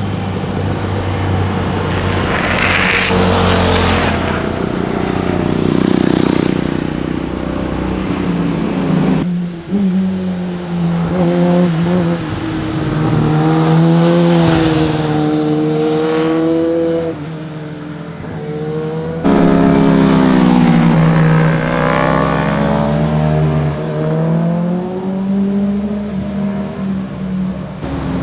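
Sport motorcycles accelerating through a bend one after another, their engines revving up and down through gear changes. One of them is a Kawasaki ZX-10R with its inline-four engine. The sound changes abruptly about 9 and 19 seconds in as one bike gives way to the next, and the loudest pass comes just after the second change.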